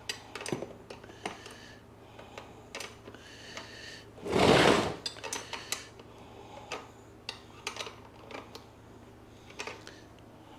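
Metal clicks and clinks of a 15 mm wrench working the front axle nut of a Jansno X50 electric bike, with one louder rustling rush about four and a half seconds in.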